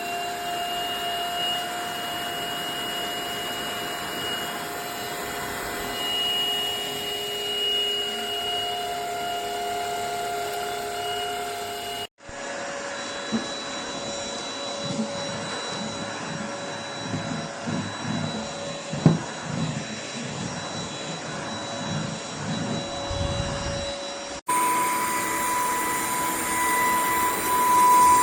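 Cordless stick vacuum cleaner (Stanew 22.2 V, 150 W) running with a steady motor whine, in three stretches joined by abrupt cuts about 12 and 24 seconds in, the whine at a different pitch in each. Irregular low knocks come through in the middle stretch.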